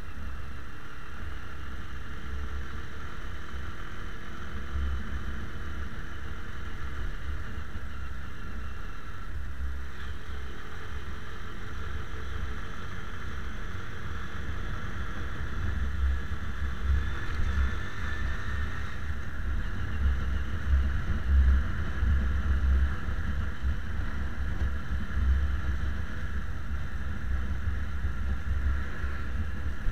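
Motorcycle ridden on the road: engine running under a low, uneven rumble of wind on the bike-mounted camera's microphone, growing louder and gustier from about halfway.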